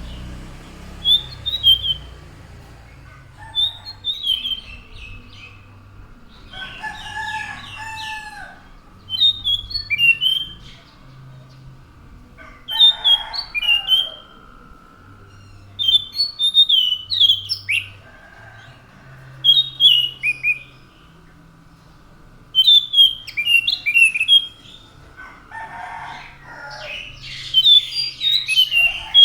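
Anis macan thrush singing: short phrases of sharp, descending whistled notes, repeated every two to three seconds, with lower warbling notes from another bird in some of the gaps.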